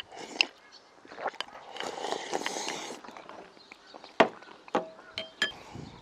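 Close-up eating sounds: slurping and sipping soup from a bowl held to the mouth. About four seconds in comes a sharp knock as the bowl is set down on the wooden table, then a few light clinks of chopsticks against the dishes.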